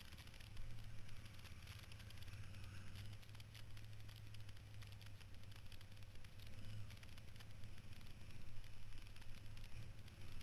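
KTM 990 Adventure R V-twin engine running as the bike rides along: a steady low drone with frequent small crackles over it.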